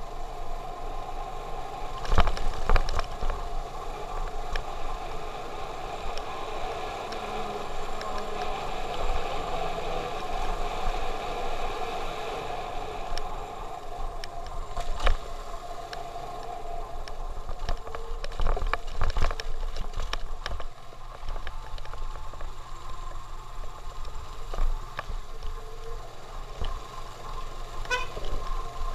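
Motorcycle engine running at a steady riding speed on a rough, potholed road, with several sharp knocks as the bike jolts over the broken surface, the loudest about two seconds in.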